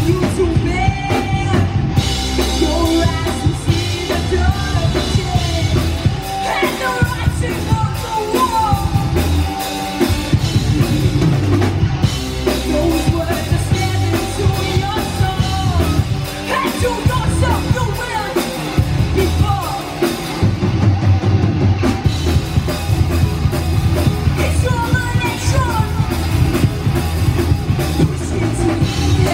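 Live rock band playing: a woman singing over electric guitar, bass guitar and drum kit, loud and continuous.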